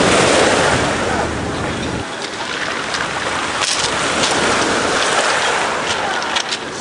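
Sea water washing and lapping around a person wading in the shallows, with a few small splashes. A low rumble sits under it for the first two seconds, then drops away.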